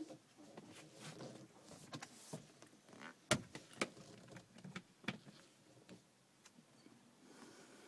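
Handling noise from a phone camera held against car upholstery: soft rubbing and rustling with scattered small clicks and knocks. The sharpest click comes a little over three seconds in, with a few more over the next two seconds.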